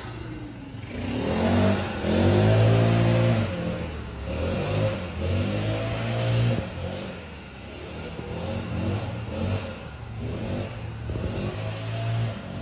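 An engine revving up and down again and again, each surge lasting a second or two.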